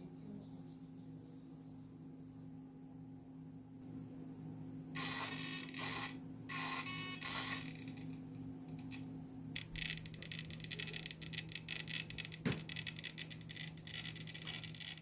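Small metal parts and tools being worked by hand on a model boat's pull-pull steering linkage: a few short buzzing bursts, then a long run of rapid light metallic clicks and scrapes.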